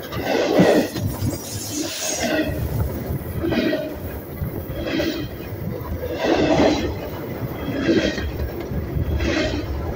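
Train rolling over a camera on the track, its wheels passing overhead with a rhythmic clatter that pulses louder about every second and a half.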